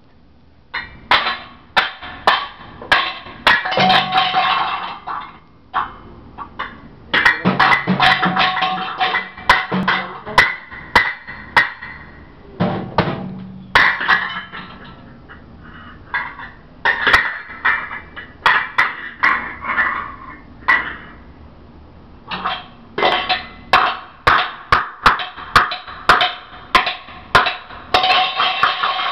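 Pots and pans beaten by a child in irregular runs of clanging strikes, one to several a second, each leaving a metallic ring. There are short pauses between runs.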